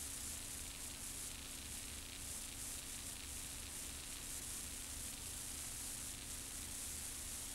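Steady hiss with a faint low hum underneath, the background noise of an old videotape recording; nothing else happens.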